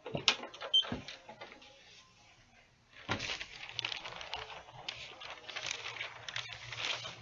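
Two sharp knocks in the first second, then sheets of parchment paper rustling and crackling as they are peeled off a freshly heat-pressed T-shirt and handled.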